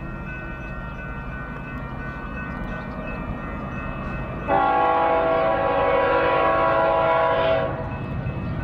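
Air horn of an approaching Union Pacific freight locomotive sounding one long blast of about three seconds, starting about halfway in, over the steady low rumble of the oncoming train.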